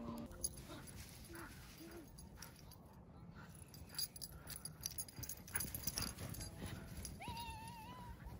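A husky-type dog whines once near the end, a single wavering high whine held for about a second, over faint crunching footsteps in snow.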